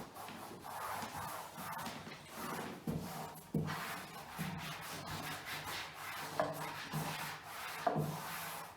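Repeated rubbing strokes against a wooden flat-pack drawer, about once a second, with a few light knocks as the drawer is handled.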